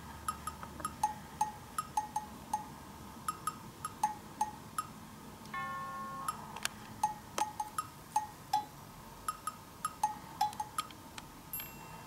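Light background music: a bouncy tune of short, knocking percussive notes a few times a second, with a brief held chime-like tone about halfway through.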